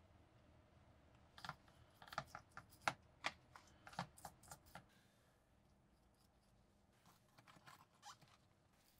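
A small brush working oil over rusty metal knife-handle parts in a plastic tray: a quick run of small clicks and taps, then a few fainter ones later on.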